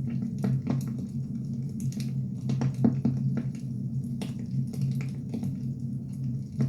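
Burning firewood crackling, with irregular sharp pops and snaps, over a low steady hum.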